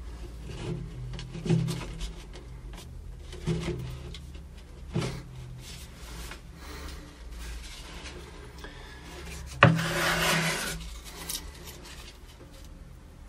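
A PVC pipe port rubbing and knocking as it is pushed and seated into a hole in a plywood baffle. There are a few dull knocks, then a sharp knock about ten seconds in followed by a second of scraping, over a steady low hum.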